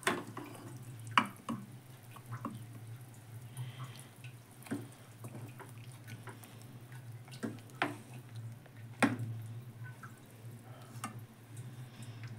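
Meatballs simmering in gravy in a metal pot, with small bubbles popping and a metal spoon knocking and scraping against the pot several times, over a steady low hum.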